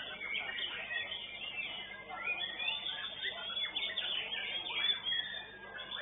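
White-rumped shama singing in a contest cage: a fast, continuous run of varied whistles and chirps, with notes sweeping up and down.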